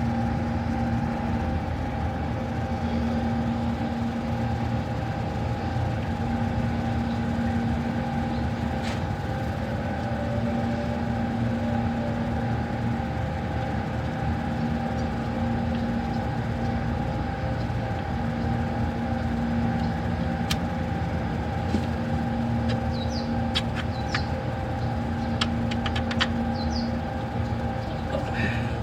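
Honda XRM 125's single-cylinder four-stroke engine running steadily, with a low note that swells and fades every second or two. A few light clicks come near the end.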